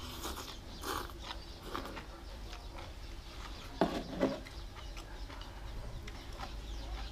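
Close-up eating sounds: slurping a mouthful of greens from chopsticks, then chewing, with light clicks of chopsticks against a plate. Two short, louder sounds come close together about four seconds in.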